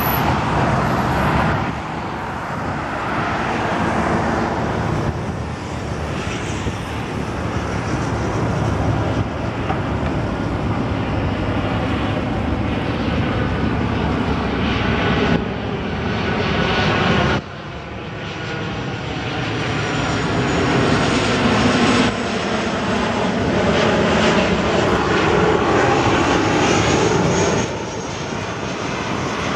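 Jet airliner engines passing low overhead on approach, a steady loud rush of jet noise with a wavering, sweeping tone as the aircraft goes by. The sound jumps abruptly in level several times where the recording is cut.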